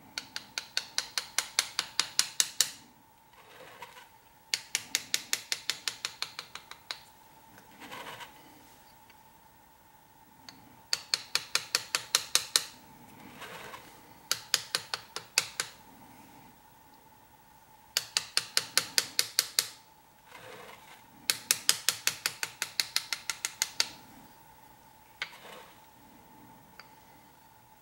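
Small engraving hammer tapping a hand graver (chisel) as it cuts a scroll into a metal plate: quick runs of light, sharp metallic taps, several a second, in six bursts of a few seconds each with short pauses between, and a single tap near the end.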